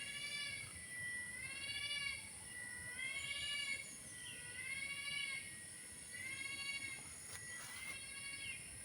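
Unidentified forest animal giving repeated wailing, cat-like calls, roughly one a second, each rising then falling in pitch. The calls sound like a crying baby.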